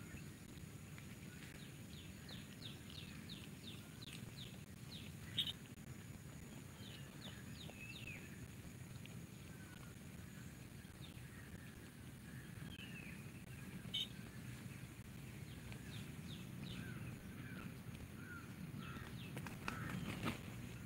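Outdoor rural ambience: small birds chirping in quick runs of short, high, falling notes over a steady low rumble. Two sharp clicks stand out, and near the end comes a brief flutter of flapping chicken wings.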